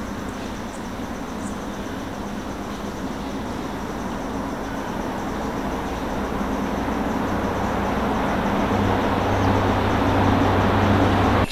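Rumble of a passing vehicle's engine, growing steadily louder, with a low hum coming in over the last few seconds before it cuts off abruptly.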